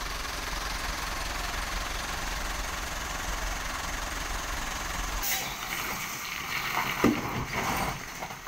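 A truck engine idling close by, a steady low rumble. About five seconds in it fades under rustling noise, with a few short, distant shouts.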